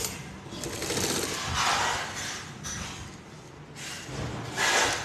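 Two short bursts of rustling and mechanism noise, about a second and a half in and again near the end, as cloth with a paper backing is worked under a sewing machine's presser foot.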